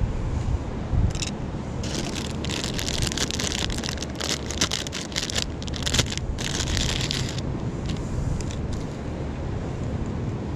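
A clear plastic packet crinkling as a pre-tied fishing rig is taken out of it: a run of crackly rustles from about two to seven seconds in, over a steady low rumble of wind on the microphone.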